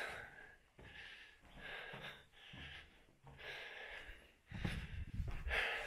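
A person breathing heavily close to the microphone, a string of short, hissy breaths with brief pauses between them. From about four and a half seconds in, a low rumble of wind on the microphone joins in.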